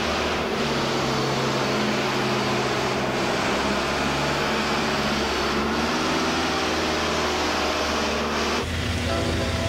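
Wheel loader's diesel engine running as it drives along the street, over a steady hiss; the engine note shifts in pitch every second or two, and the sound changes abruptly near the end.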